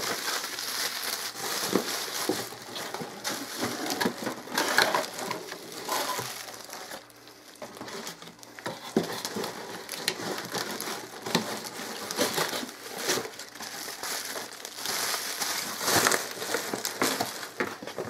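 Clear plastic packing wrap crinkling and crackling as a hand rummages through it inside a cardboard box, with the box's flaps rustling. It eases off briefly about seven seconds in, then picks up again.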